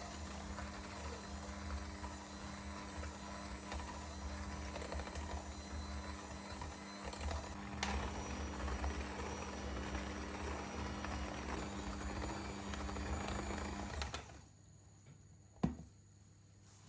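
A small electric motor running steadily with a low hum, cutting off suddenly about fourteen seconds in; a single sharp click follows shortly after.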